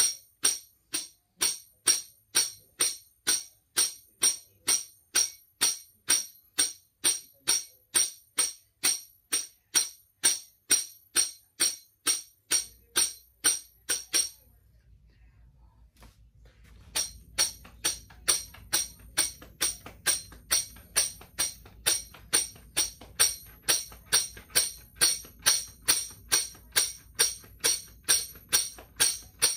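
Headed tambourine struck with the hand in a steady pulse of about two strokes a second, each stroke setting the metal jingles ringing. The strokes stop for about two seconds midway, then carry on at the same rate.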